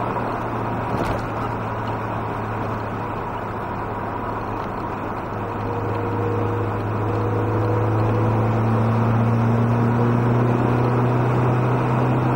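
Skoda Octavia 1.8T four-cylinder turbo engine and exhaust heard from inside the cabin at motorway speed, dominated by a steady low drone over road and tyre noise. It is the cabin resonance that sets in from about 3000 rpm, which the owner suspects comes from the large rear muffler's casing vibrating. The drone grows louder about halfway through.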